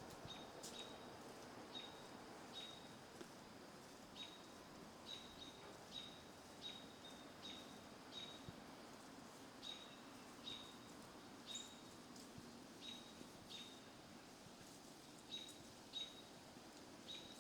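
A bird repeating a short, high chirp about once a second, faint, over a low hum of distant road traffic.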